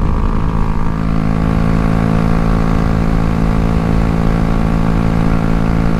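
Honda Grom's small single-cylinder four-stroke engine running at steady, unchanging revs.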